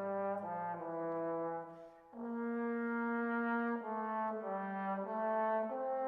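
Background music: a slow melody of long held notes with a brass sound, with a short break about two seconds in.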